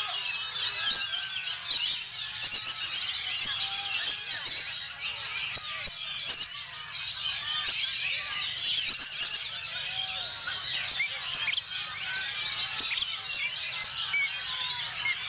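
Oriental magpie-robin singing among many other caged songbirds singing at once: a dense, unbroken chorus of shrill whistles, chirps and quick up-and-down pitch glides.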